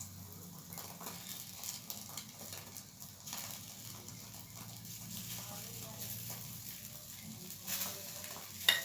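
Faint sizzling on a hot tawa as egg mixture is spread over a paratha, with light spoon scrapes and taps and one sharper tap near the end, over a low steady hum.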